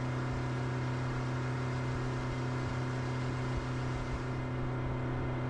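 Steady engine hum, a low drone that holds one pitch throughout.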